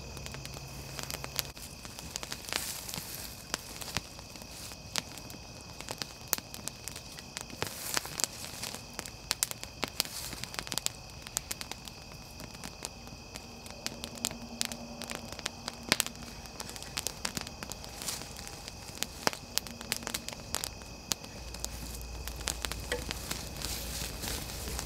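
Small wood campfire crackling, with frequent sharp pops and snaps of burning sticks.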